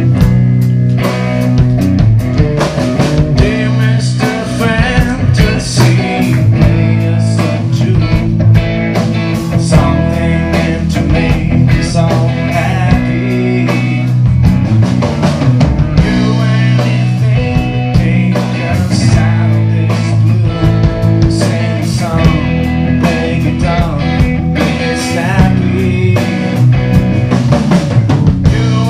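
Live rock band playing, with electric guitar, drum kit and a male voice singing.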